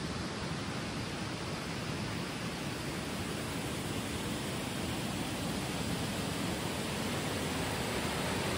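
Steady rush of river water flowing over a stony bed, growing slightly louder near the end.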